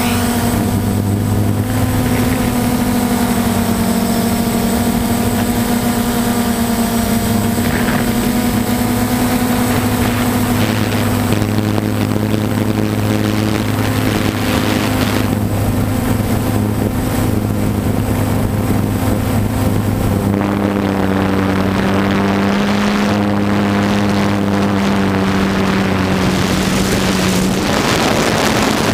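Quadcopter motors and propellers whirring steadily, heard from the camera on the drone itself, the pitch stepping up or down a few times as the drone changes speed.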